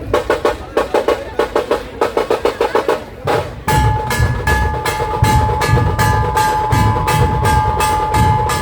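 Dhol tasha drumming. For about three seconds a fast run of sharp tasha strokes plays on its own. After a short break near the middle, the full group comes in with heavy dhol beats and a steady ringing tone above them.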